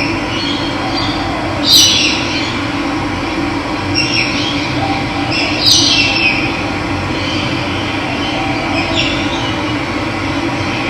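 Steady rush of running water with birds calling over it; two louder, short falling calls stand out about two and six seconds in, with fainter ones between.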